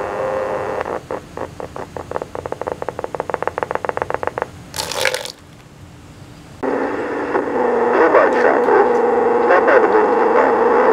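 Portable cassette recorder playing a tape through its foam-fouled speaker, the playback garbled and distorted: warbling tones break into a rapid stutter of about eight pulses a second, a brief burst of hiss comes a little under halfway, and from about two-thirds of the way in the sound turns loud, harsh and droning.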